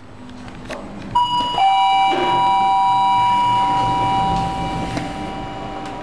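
Elevator arrival chime: a higher electronic ding about a second in, then a lower dong half a second later. Both notes keep ringing for about four seconds and then cut off together.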